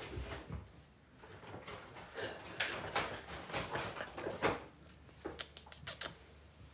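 Young puppies squirming while being held, with a cluster of short rustling and squeaky puppy noises in the middle, then a few sharp clicks near the end.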